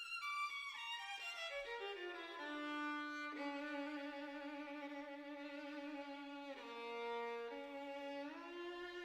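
Background music on a solo violin: a quick descending run of notes, then slow, long-held notes that shift pitch a few times.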